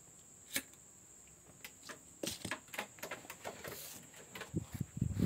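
Scattered small clicks, taps and rustles of hands handling loose wires and a circuit board on a workbench, thickening into denser knocks near the end. A faint, steady high-pitched whine runs underneath.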